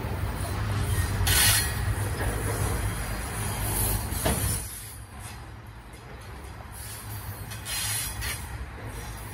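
Coal hopper wagons of a freight train rolling past close by: a steady low rumble of wheels on rail that eases about halfway through. Two short surges of high hiss come through, one about a second and a half in and one near the end.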